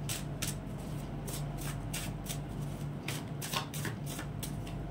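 A deck of cards being shuffled by hand: a quick run of short swishes, about three a second, over a steady low hum.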